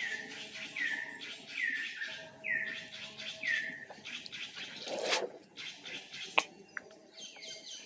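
Baby monkey crying in a series of high, falling calls, about one a second, then a few sharp clicks. More calls start near the end.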